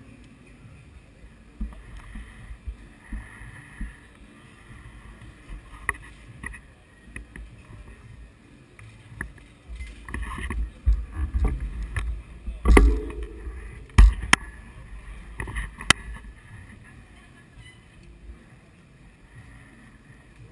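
Street ambience in a crowd of cyclists waiting with their bikes: a low rumble and bumps on a handlebar-mounted camera's microphone, scattered clicks and faint chatter. The bumps grow louder a little past the middle, with two sharp knocks about a second apart.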